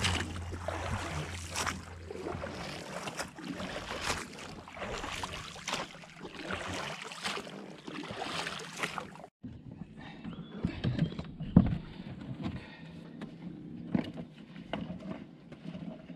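Oars of an inflatable boat dipping and splashing in lake water, stroke after stroke. After a sudden break about halfway through, scattered knocks and clunks of hands handling the outboard motor, one sharp knock loudest.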